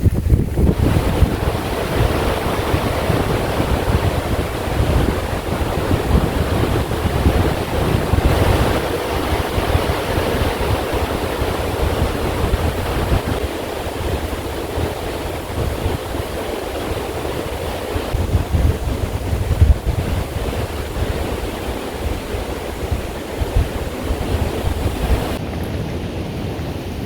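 Wind blowing across the microphone: a steady rushing with a gusting low rumble.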